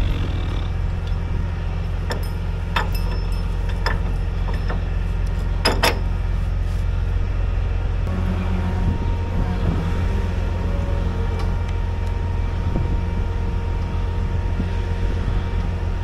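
Heavy wrecker's diesel engine running steadily, with a few sharp metal clanks from the rigging about three, four and six seconds in. A faint steady whine joins about halfway through.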